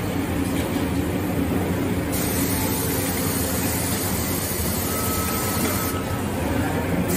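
Steady machinery hum and noise of a factory floor, with a faint high tone held for about a second near the middle.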